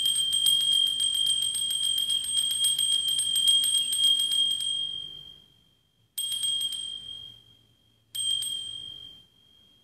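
Altar bells (a cluster of small Sanctus bells) shaken in rapid continuous ringing for about five seconds, then rung in two short shakes about two seconds apart, each dying away. They mark the elevation of the consecrated host at Mass.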